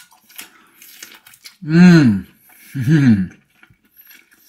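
A man humming two drawn-out "mmm" sounds with his mouth full of barbecue ribs, each rising then falling in pitch, the sound of someone enjoying the food. Faint wet chewing and small mouth clicks come between them.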